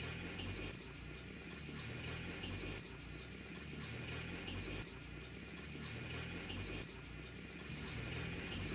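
Moong dal pakoris sizzling and bubbling in hot oil in a kadhai as more batter is dropped in: a steady, faint frying hiss with light crackle.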